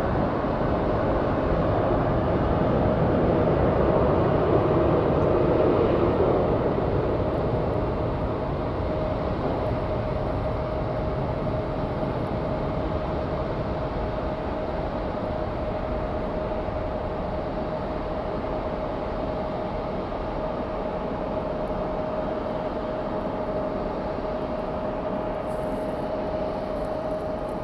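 Jet airliner engines running with a steady whine. The noise is loudest over the first several seconds, then eases a little and holds steady.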